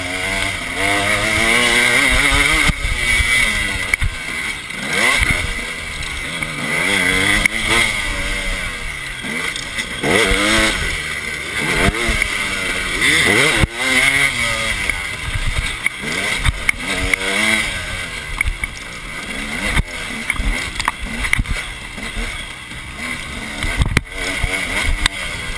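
2009 KTM 250 EXC two-stroke enduro bike engine under riding load, revving up and falling back again and again as the throttle opens and closes. Wind rushes over the bike, with a few sharp knocks from bumps.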